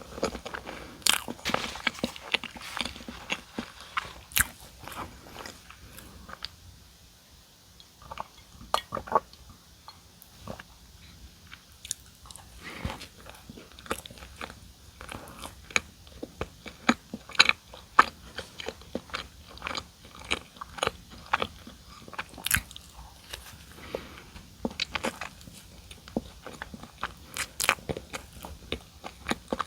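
Close-miked eating of donuts: irregular biting and chewing with crisp crunching clicks, quieter for a couple of seconds about a quarter of the way in.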